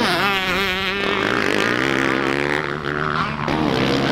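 Dirt bike engines revving on a motocross track. In the first second the pitch wavers quickly up and down as a bike goes over a jump, then several bikes give a steadier, shifting drone.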